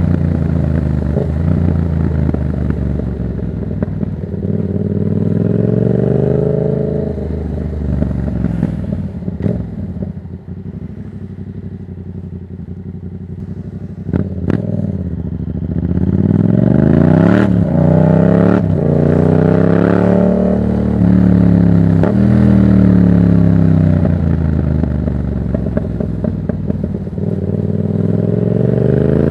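Yamaha MT-07's parallel-twin engine through a Black Widow exhaust with the dB killer removed, under way. The pitch rises and falls with the throttle and drops to a quieter, low-rev stretch through the middle. In the second half the engine pulls hard several times, its pitch repeatedly climbing and falling back.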